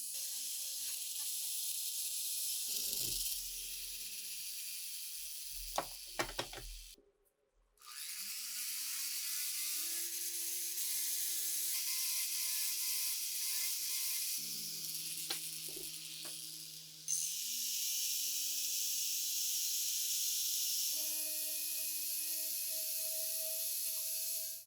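A small power tool runs with a steady hiss, with a few clicks and knocks in the first seconds. It stops briefly about seven seconds in and starts again, its motor pitch rising as it spins up, and it spins up once more near the middle.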